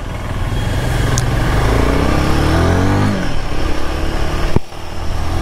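Royal Enfield Himalayan 450's single-cylinder engine pulling away and accelerating, its pitch rising, dropping at a gear change about three seconds in, then climbing again.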